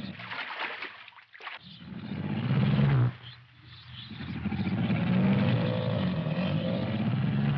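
Water splashing, then deep animal roars standing in for crocodiles chasing a man in the water: a rising roar of about a second and a half, then a longer one held through the rest.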